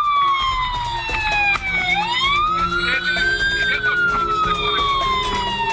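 Fire engine siren wailing: each cycle a slow fall in pitch lasting about three seconds, then a quicker rise, with a steady low hum beneath.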